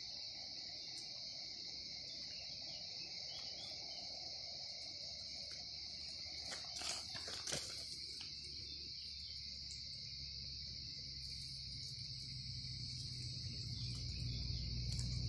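Insects trilling steadily at a high pitch in the open countryside, unbroken throughout. A couple of sharp clicks come about seven seconds in, and a low rumble grows near the end.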